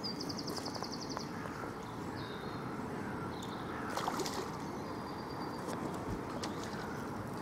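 Lake water sloshing and lapping around a wading angler's legs as he plays a hooked carp. Birds chirp over it, with a quick rapid trill in the first second and a few light clicks about four seconds in.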